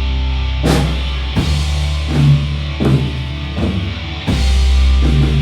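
Rock band playing live in rehearsal: low, held bass notes under drum hits that come about every three-quarters of a second.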